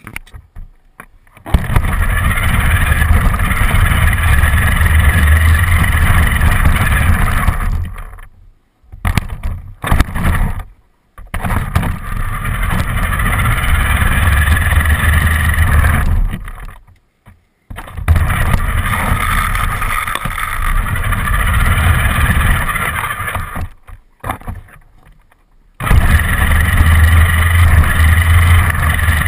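RC car driving with the camera riding on it: loud motor and drivetrain running with rumble and rattle, in runs of about five to six seconds. It cuts to near silence three times, about eight, sixteen and twenty-four seconds in.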